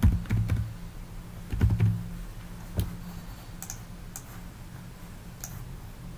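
Computer keyboard keystrokes typing a word: several irregular taps in the first two seconds, then a few sparser clicks. A steady low hum lies underneath.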